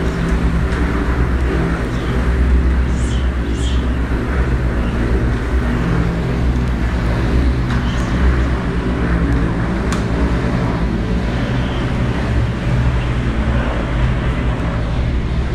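Mi-17-type twin-turbine helicopter lifting off and climbing away: steady, loud rotor and turbine noise.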